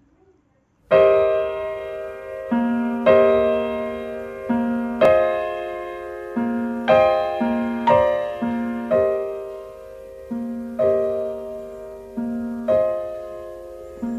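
Solo piano playing a slow, gentle melody, starting about a second in, with notes and chords struck every second or two and left to ring out.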